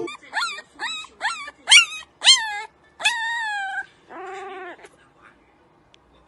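A puppy yipping and whimpering: about six short, high yelps that rise and fall in pitch, then a longer drawn-out whine, and a lower call after it.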